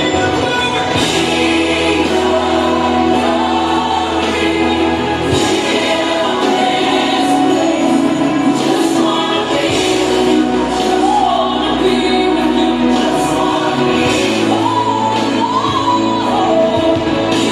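Gospel music: a choir singing over held bass notes that change every few seconds.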